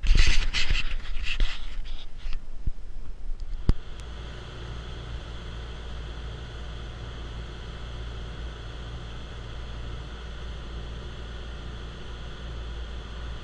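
For the first few seconds, loud, rough rustling bursts of noise against the camera microphone as the camera is handled. From about four seconds in, a fishing boat underway: a steady low engine drone with wind and water rushing past.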